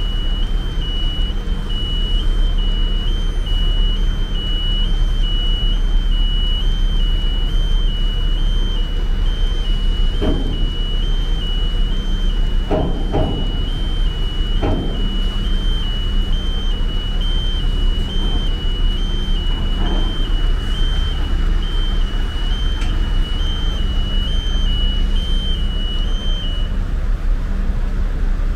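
Vehicle engines running steadily on a car ferry's vehicle deck as cars drive off, with a high electronic warning beep alternating between two pitches that stops near the end. A few dull clunks come in the middle.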